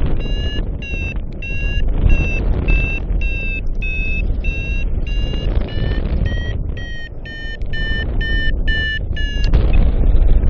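Paragliding variometer beeping in a steady train of short tones, about two a second, the audio signal of rising air; from about two-thirds of the way in the beeps come quicker and slightly higher, marking a stronger climb. Wind rushes over the microphone underneath.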